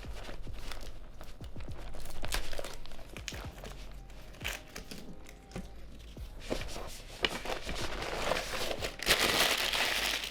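Crinkling and rustling of packaging and bag material, with scattered light clicks, as the straps of a new camera sling bag are taken out and handled. A denser burst of rustling comes near the end.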